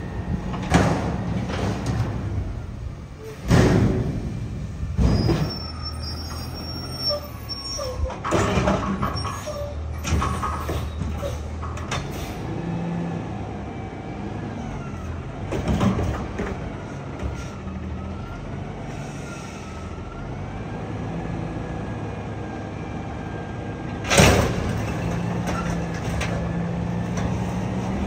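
Autocar ACX Heil Half/Pack front-loader garbage truck running on its CNG engine while its forks lift and dump a dumpster over the cab, the engine held up to drive the hydraulics. Repeated bangs and clanks come as the container is shaken out and set down, and there is a single sharp loud burst near the end.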